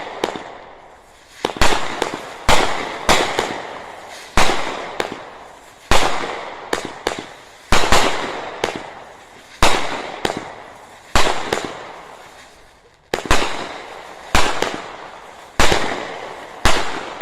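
Fireworks going off: a steady series of sharp bangs, roughly one a second, each with a long echoing tail.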